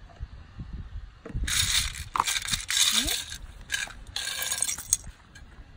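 Small plastic building pieces rattling and scraping against a metal tin as they are tipped and pushed out, in several clattering bursts.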